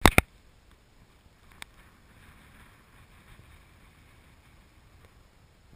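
Two sharp knocks at the very start and a single click about a second and a half in, then faint steady wind and rolling noise from moving along a sandy dirt trail, with no engine heard.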